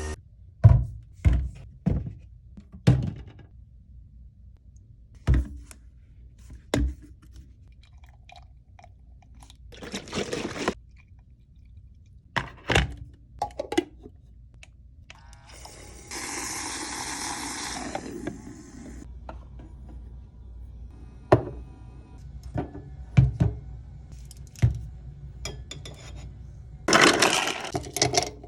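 Handling sounds of iced-latte making: a string of sharp taps, clicks and knocks of cups, bottles and utensils, with a short rush of noise about ten seconds in, a longer steady hiss for about three seconds past the midpoint, and a cluster of clattering knocks near the end.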